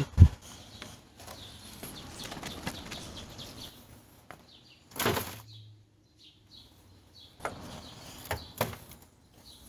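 Wet, gunky debris being scraped and scooped out of the bottom of an old gas grill by hand, with rustling scrapes and several knocks against the grill's metal. There is a sharp thump at the start and a louder knock about five seconds in.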